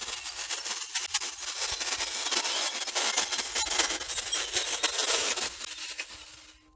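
Saker mini electric chainsaw cutting through a small log, the chain rasping through the wood. The noise tails off and stops near the end.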